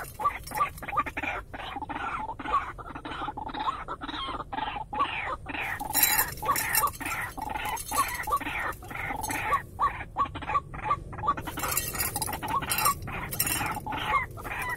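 White-breasted waterhen calling: short, rapidly repeated calls, several a second, kept up without a break, with stretches of higher rustling noise about six seconds in and again near the end.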